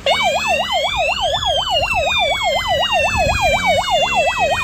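Wireless fire alarm system sounding after a device in zone 3 is triggered, starting abruptly. A fast warbling sweep repeats about five times a second beneath a higher tone that slowly rises and falls.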